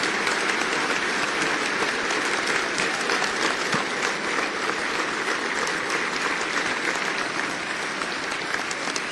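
Large audience applauding steadily, a dense patter of many hands clapping that eases slightly near the end.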